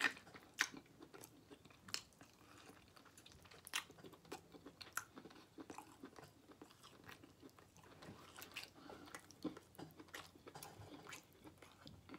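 A person chewing and gnawing smoked turkey leg meat off the bone, with irregular short smacks and clicks of the mouth.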